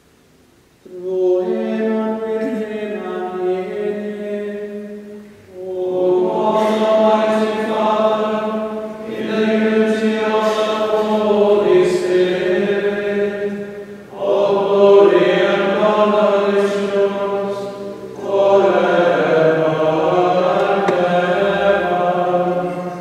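Priests' male voices chanting the final doxology of the Eucharistic Prayer in unaccompanied plainsong, in five phrases with short breaths between them.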